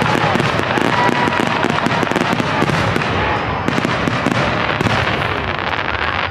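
Fireworks display: a dense, continuous barrage of bangs and crackles.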